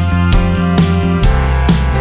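Music with a steady beat and sustained bass notes; the bass shifts to a lower note about a second and a quarter in.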